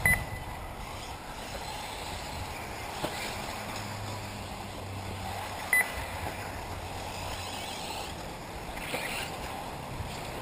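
1/8-scale electric RC buggies running on the off-road track, with a steady hiss of tyres and motors and a rising and falling whine now and then. Two short electronic beeps sound about six seconds apart.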